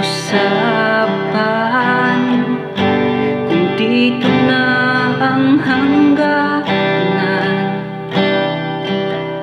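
Acoustic guitar strummed in chords while a man sings in Tagalog, recorded close through a BM-800 condenser microphone.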